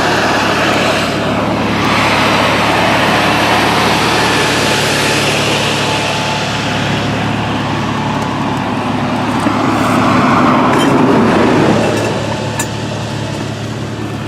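Roadside traffic: vehicles passing on the road over a steady low engine hum, with one louder pass that builds and fades away about eleven to twelve seconds in.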